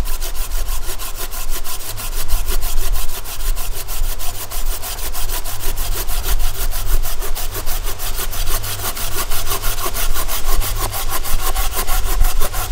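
Bahco Laplander folding saw cutting through a piece of green sweet gum branch about three inches thick. The blade cuts on both the push and the pull, giving a fast, even run of rasping strokes.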